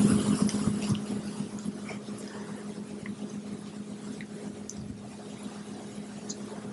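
Room tone in a hall: a steady low hum with a few faint ticks. The reverberation of the last spoken words dies away in the first second.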